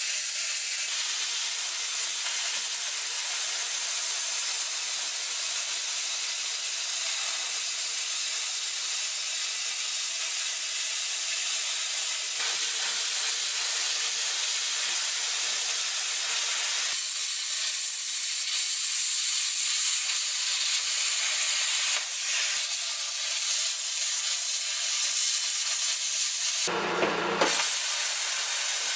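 Plasma cutter hissing steadily as its arc cuts through rusted sheet steel, the hiss shifting in tone a few times as the cut goes on. Near the end a brief buzz lasts about a second.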